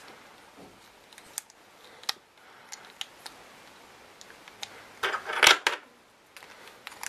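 Hard plastic puzzle-cube pieces clicking as corner pieces are fitted by hand onto a partly reassembled V-Cube 3x3. Scattered light clicks, then a louder clatter of pieces about five seconds in.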